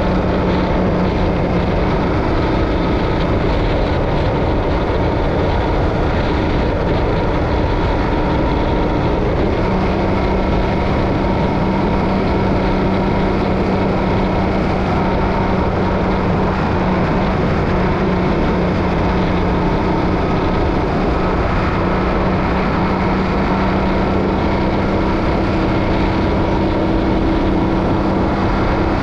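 Yamaha Ténéré 700's parallel-twin engine running at a steady cruise over a constant rush of wind and road noise. The engine note eases between about two and ten seconds in, then holds steady.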